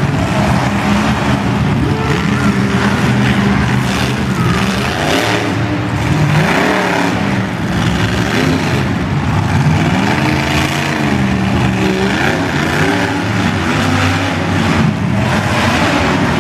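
Monster truck engines revving hard and loud, the pitch climbing and dropping over and over as the truck throttles through its turns, over a constant dense roar.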